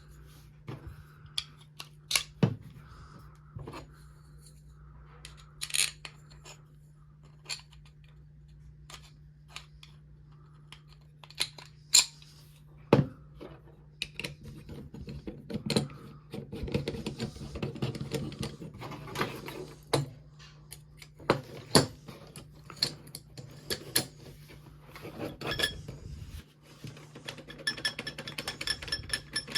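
Metal parts of a small bow saw clicking and clinking as it is put together by hand: scattered sharp clicks and knocks, sparse at first and busier from about halfway, over a faint steady hum.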